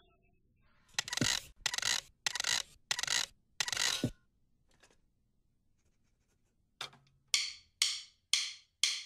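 Separate hits on a drum kit with no steady beat: five hits about two-thirds of a second apart, a pause, then four shorter hits near the end.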